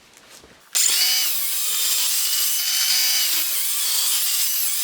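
Ridgid R48607B 18-volt cordless sliding compound miter saw starting about a second in and cutting through a 2x8 at a 31.6-degree setting. A high motor whine mixes with the blade rasping through the wood, and the pitch wavers slightly under load.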